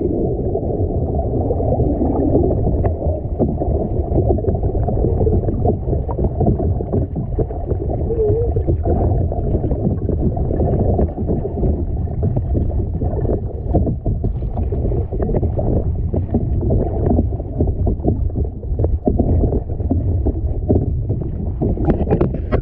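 Steady, heavily muffled rush of wind and sea water around a sea kayak, with small knocks and splashes through it.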